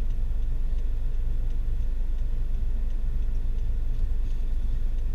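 Steady low rumble of a stopped car's idling engine heard from inside the cabin.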